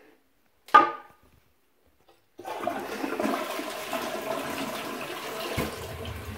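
A short sharp sound about a second in, then a toilet flushing: water rushing into the bowl starts suddenly about two and a half seconds in and keeps going, deepening near the end.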